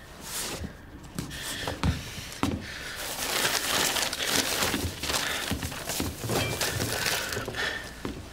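Hurried rummaging: a few separate knocks and thuds, then from about three seconds in a dense, continuous rustle of paper sheets being rifled through and tossed aside.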